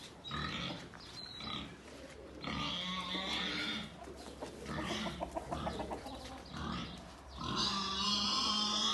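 A large farm animal calling in several long, drawn-out cries, the longest and loudest near the end.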